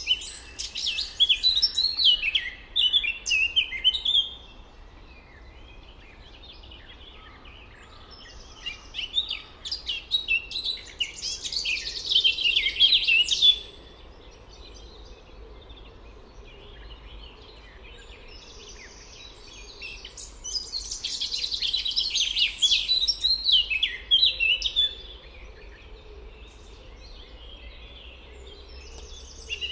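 Songbirds singing near a lake: bursts of rapid, high chirping and trilling phrases, several seconds each and separated by quieter pauses, over a low steady background hum.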